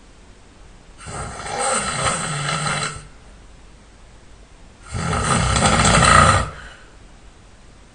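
A person snoring loudly: two long snores, each about two seconds, with quiet breathing between them; the second snore is louder.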